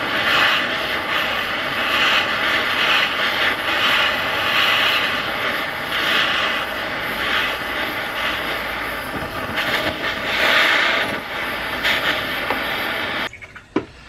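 Handheld gas torch burning with a steady hissing roar while its flame plays on a screwdriver and a PVC fitting. The torch is shut off abruptly near the end.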